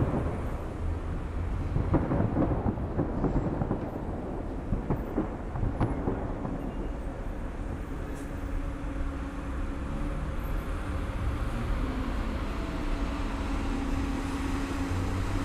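Fireworks going off: a quick run of booms and crackles from bursting aerial shells for the first six seconds or so, then a steadier low rumble of continuing bursts.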